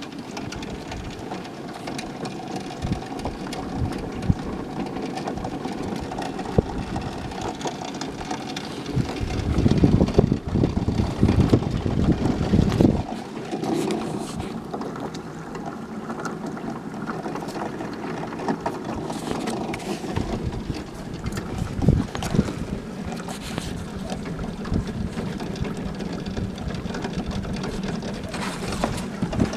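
Wind buffeting the microphone outdoors: a steady low rumble, with a stronger gust lasting a few seconds about ten seconds in.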